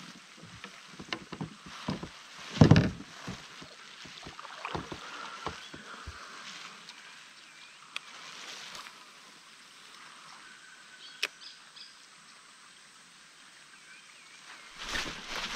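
Scattered taps and knocks on a plastic fishing kayak in the rain, with one louder knock about three seconds in, over a faint steady hiss of rain. A louder rush of noise comes just before the end.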